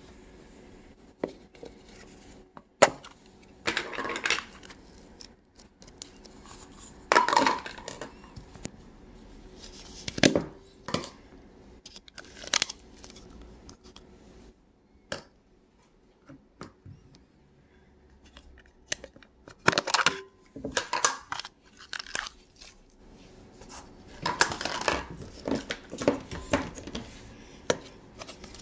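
Hands handling plastic slime tubs and lids and working slime into a glass bowl: irregular short crackles, rustles and a few sharp clicks.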